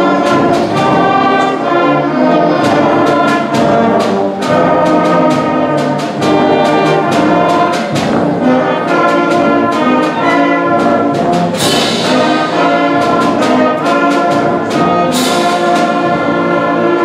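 School concert band playing loudly, led by trumpets and other brass, in the closing passage of a piece. Sharp percussion strikes run through it, with two cymbal crashes in the second half.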